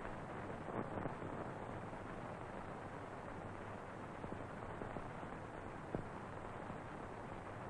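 Steady hiss of an old film soundtrack, with a few faint clicks about a second in and near six seconds.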